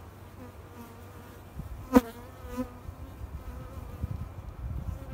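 Honeybees buzzing steadily over an open hive. About two seconds in there is one sharp knock, the loudest sound, with a softer one just after, as a wooden comb frame is set back down into the hive box.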